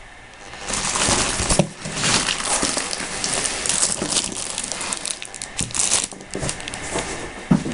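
Clear plastic wrap around a boxed figure crinkling and rustling as it is handled, then a few light knocks near the end.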